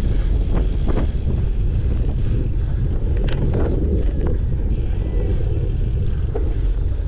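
Wind rushing over the microphone over the rumble and rattle of a cyclocross bike ridden hard over rough ground, with a few sharp clicks and knocks.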